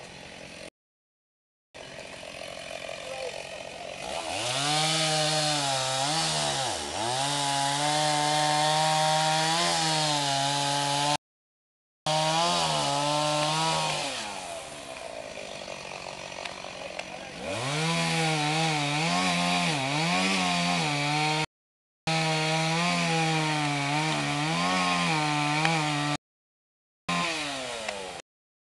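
Two-stroke chainsaw revving high and cutting firewood, its engine pitch dipping and recovering under load, with stretches of quieter idling in between. The sound cuts off abruptly for a moment several times.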